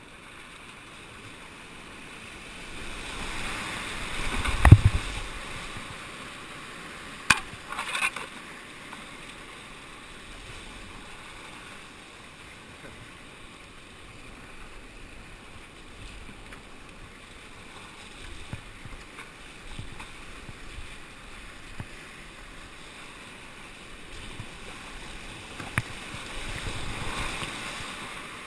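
Whitewater rapid rushing steadily around an open canoe as it runs the drop, heard close up from a camera on the boat. The water swells louder a few seconds in and again near the end, with one heavy thump about five seconds in and two sharp knocks a few seconds later.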